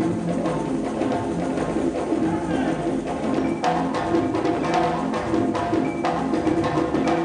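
Ensemble of tall wooden hand drums played with bare hands in a fast, busy rhythm. Sharp slaps stand out more clearly from about three and a half seconds in.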